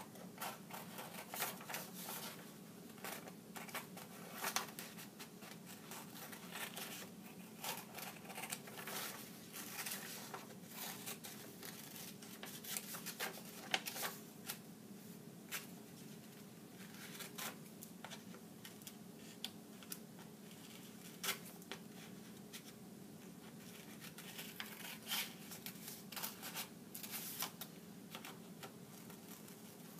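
Scissors snipping through paper in short, irregular cuts, working around the edges of a cut-out drawing, over a faint steady hum.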